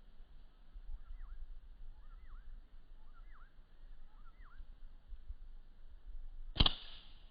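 Four faint bird chirps about a second apart, then a single sharp crack of a slingshot shot about six and a half seconds in, the loudest sound, with a brief ringing tail.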